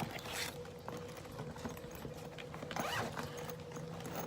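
Handling noise: objects being picked up and moved, with short rustles and small mechanical clicks twice, over a faint steady hum.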